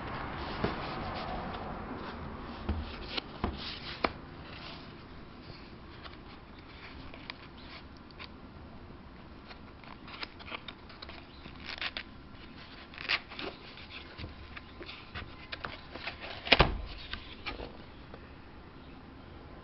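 Cardboard keyboard box being handled and opened: scattered scrapes, taps and rustles of cardboard and plastic wrap, with one sharp knock near the end.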